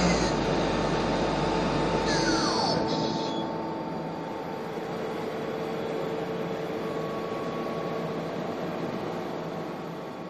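Mazak Super QT 10 M CNC turning and milling centre winding down. A whine falls in pitch about two seconds in while the running noise eases off, leaving a steady mechanical hum that fades near the end.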